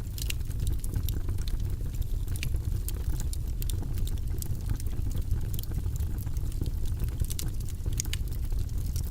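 Wood fire of burning logs in a fireplace crackling, with sharp irregular pops and snaps over a steady low rumble of the flames.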